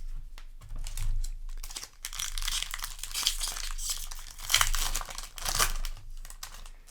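Crinkling and rustling of a Magic: The Gathering play booster pack's foil wrapper being handled, densest through the middle few seconds.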